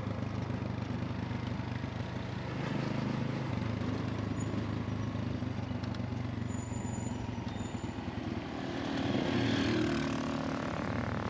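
Engine and road noise of a passenger vehicle on the move, a steady low hum with tyre noise. The engine climbs in pitch and gets louder near the end as the vehicle speeds up.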